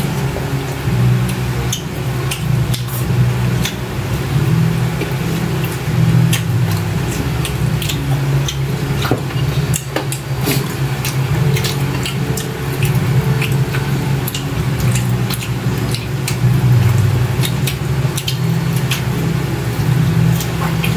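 People eating grilled chicken and rice by hand: chewing, lip smacks and many small sharp clicks, over a loud steady low hum.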